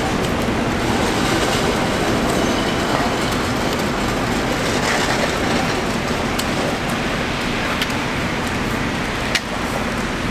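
NYC subway train running on an elevated steel track as it pulls away from the station, a steady rumble. A single sharp knock comes near the end.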